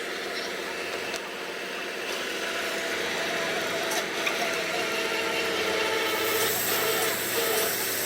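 A heavy machine's engine running steadily and slowly growing louder, with a hiss building in the last couple of seconds.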